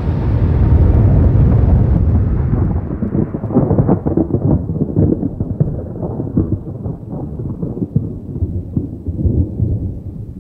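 A bomb-blast sound effect: a heavy, deep rumble, loudest in the first couple of seconds, slowly dying away with crackling and popping through its tail.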